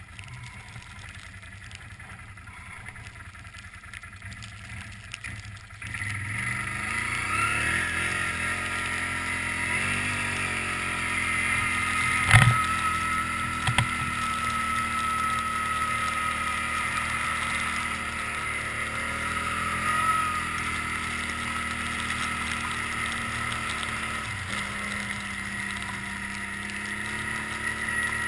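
Can-Am Outlander 800 Max ATV's V-twin engine running quietly. About six seconds in it revs up and gets louder, then runs steadily under way. There is a sharp knock about twelve seconds in.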